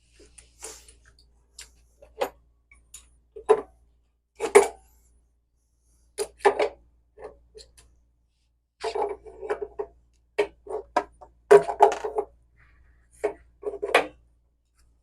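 Irregular metal clinks and knocks from hand tools, with a couple of short rattling runs, as a new temperature-and-pressure relief valve is fitted to a water heater.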